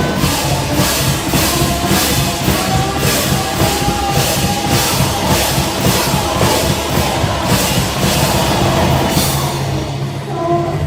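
Live rock band playing loudly, with a hard, crashing beat about twice a second over a sustained bass and synth-like drone. The crashing beat drops out about nine seconds in, leaving the lower parts playing on.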